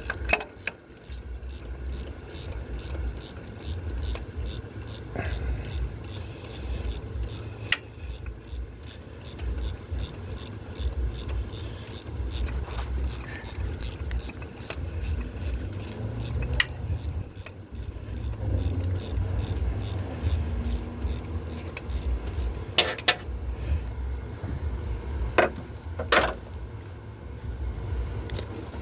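Ratchet wrench clicking steadily, about two to three clicks a second, as a motor mount bolt is backed out; the clicking stops about three-quarters of the way through, followed by a few louder metallic clicks.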